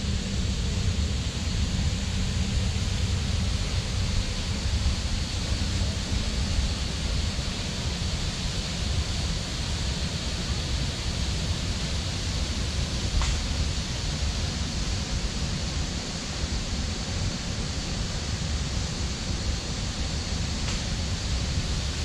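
Steady rushing of a waterfall about 20 metres high plunging into its pool, with a low rumble underneath.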